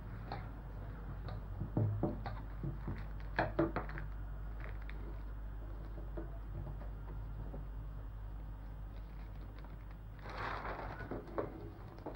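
A newspaper being handled and spread out on a table: scattered crinkles and taps of paper, then a longer rustle about ten seconds in as a page is turned, over a steady low hum.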